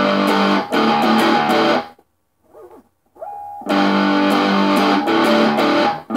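Squier Stratocaster electric guitar in drop D tuning, strumming the open strings in a repeated rhythm (the unfretted chorus part). The chords break off about two seconds in, leaving only faint string noise for about a second and a half, then the strumming resumes.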